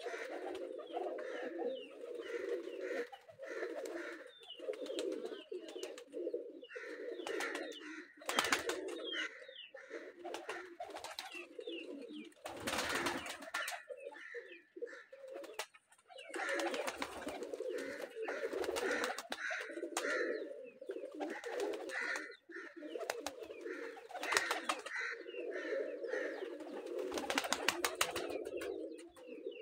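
A flock of domestic pigeons cooing almost continuously, many overlapping coos, with a few short noisy bursts now and then, the biggest about halfway through.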